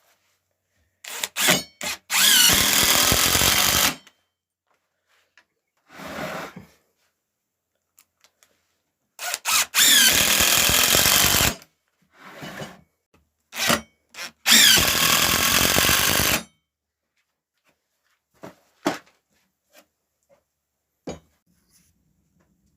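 Power drill driving screws into rough wood: three runs of about two seconds each, each started with a few short trigger blips, fixing the sides onto the main piece. A few light knocks near the end.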